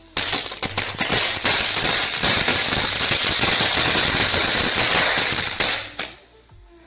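A firecracker going off in a loud, rapid string of crackling pops for about six seconds, then stopping abruptly.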